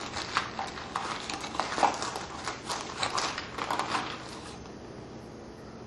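A quick run of light clicks and knocks from small hard objects being handled on a reloading bench, stopping about four and a half seconds in.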